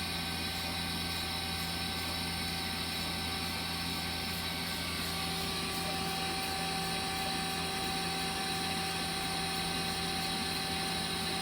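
Yamazaki Mazak Quick Turn Nexus 250 CNC lathe running: a steady machine hum with several steady tones. About halfway through, the tones shift slightly.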